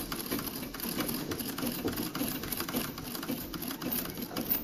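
A 1912 Singer 127 treadle sewing machine, a vibrating-shuttle machine, running steadily under foot power, its needle bar and mechanism making a rapid, even run of clicks. It is stitching through fabric with no bobbin or thread in it.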